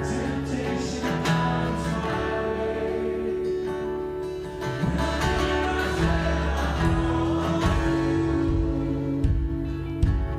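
Worship band music: strummed acoustic guitar over bass and held keyboard notes, with some singing.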